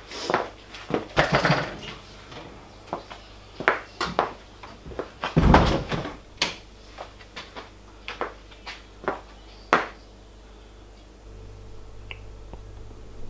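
Irregular sharp clicks and knocks, with louder clunks near the start and about five and a half seconds in: a cyclist moving about and handling his road bike and gear.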